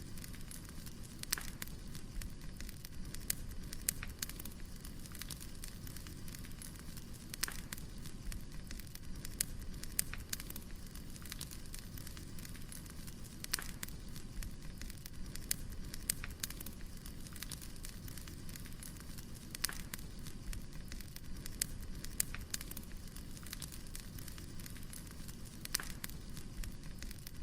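Wood fire burning: a steady low rumble with sharp, irregular crackles and pops.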